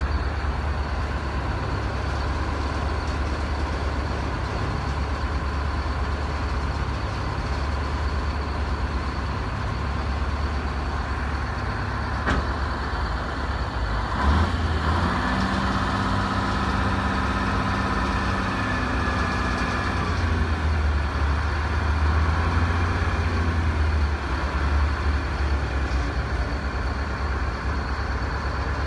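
Heavy equipment engine idling with a steady low rumble. About halfway through, a higher steady drone joins it for about six seconds and then fades.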